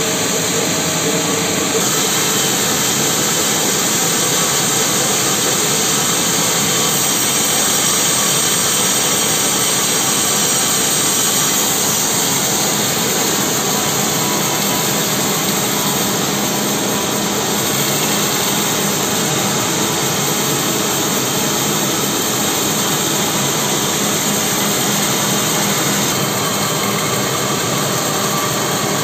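Band sawmill running steadily, its band blade cutting lengthwise through a mahogany log, with a slight change in tone about two seconds in and again near the end.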